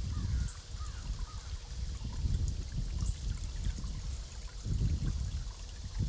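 Running water trickling steadily.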